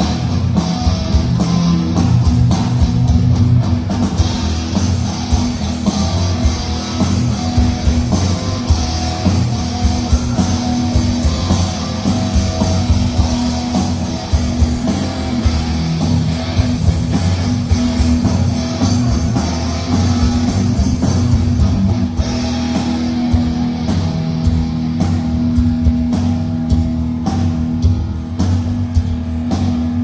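A live metal band playing loud through a concert PA: electric guitar and bass guitar over a drum kit, played without a break.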